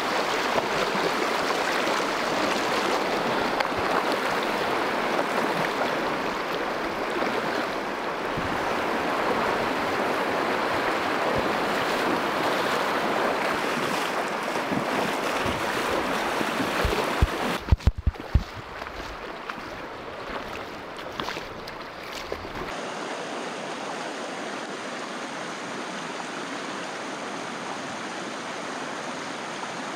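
River current rushing over a shallow, choppy riffle, a steady hiss of moving water. About two-thirds through come a few short low thumps, the loudest sounds here, and a few seconds later the water sound turns softer and steadier.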